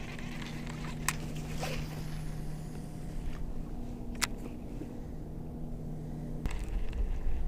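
Electric trolling motor on a bass boat humming steadily, then cutting off about six and a half seconds in, after which a low rumble takes over. Two sharp clicks come about one and four seconds in.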